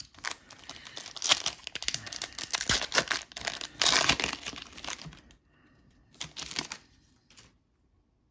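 Foil wrapper of an O-Pee-Chee Platinum hockey card pack being torn open and crinkled by hand: a run of crackling tears for about five seconds, then a shorter crinkle a little after six seconds.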